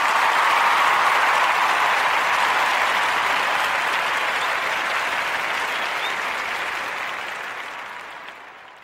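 Crowd applause, a dense steady clapping that fades out toward the end.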